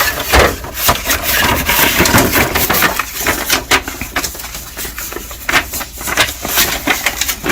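Handling noise at a laser printer's automatic document feeder: a busy run of clicks, knocks and crackly rustling from plastic parts and paper being moved.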